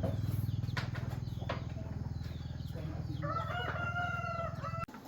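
A rooster crows once, a long held call in the second half, over the steady low throb of a running small engine; both cut off suddenly near the end.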